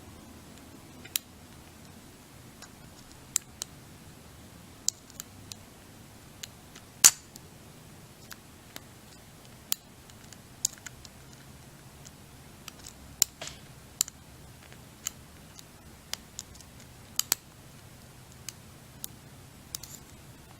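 Brinks disc padlock being single-pin picked with a hook pick and tension tool: small sharp metal clicks and taps at irregular intervals, one louder click about seven seconds in.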